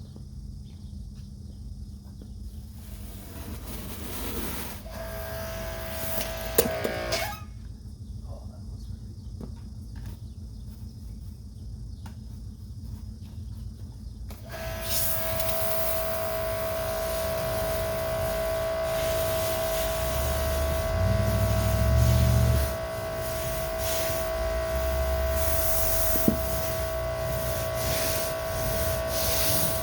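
Electric pressure washer motor and pump cutting in briefly about six seconds in, then starting up about halfway through and running with a steady whine while driving a surface cleaner.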